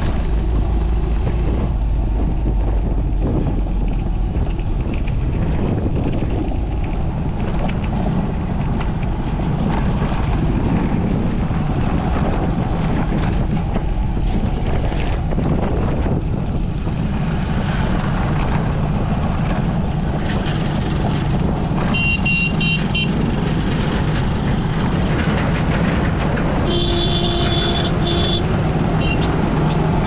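Motorcycle running along the road, a steady engine rumble with road and wind noise. A vehicle horn toots a few times about two-thirds of the way through and sounds again for about a second and a half near the end.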